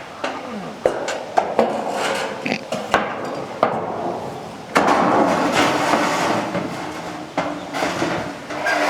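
Handling noises: a string of sharp knocks and clatters, with a louder stretch of rustling or scraping lasting about two seconds near the middle.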